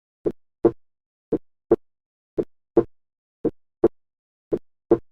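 Normal heart sounds at the aortic area: a steady lub-dub, five beats at about one a second, with the second heart sound (S2) of each pair louder than the first (S1).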